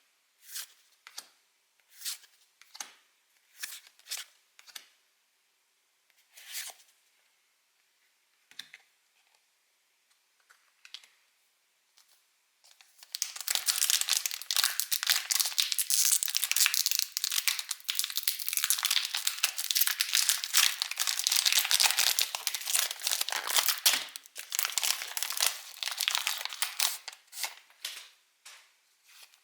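Pokémon trading cards sliding against each other in short separate swishes, then a foil booster pack wrapper being torn open and crinkled in a long, dense crackle from about a third of the way in until near the end.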